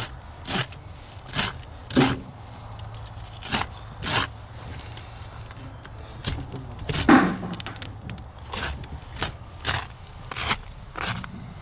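Knife blade working between an alligator gar's armored, scaly skin and its meat as the skin is peeled back: a series of short scrapes at irregular intervals, one or two a second, the loudest about seven seconds in.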